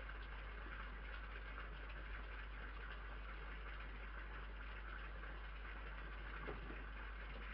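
Steady hiss with a low hum underneath, the noise floor of an outdoor security camera's microphone, with one faint tap about six and a half seconds in.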